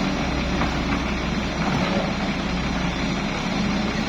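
Heavy construction machine's engine running steadily.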